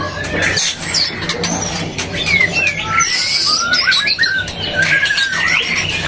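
White-rumped shama (murai batu) singing in its cage: a varied run of short whistled notes sliding up and down, mixed with sharp clicking notes and a brief harsh hiss about halfway through.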